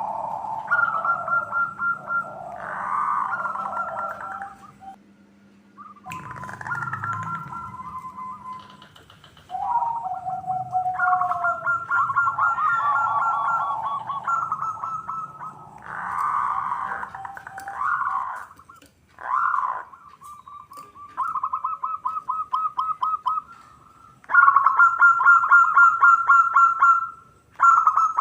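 Zebra doves (perkutut) cooing: repeated runs of fast, staccato notes, with rougher calls between the runs and the loudest run near the end.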